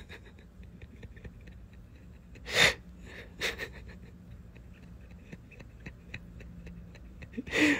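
A man's breath close to the microphone: a short puff of breath about two and a half seconds in, a smaller one about a second later, and another near the end, over faint clicks and a low steady hum.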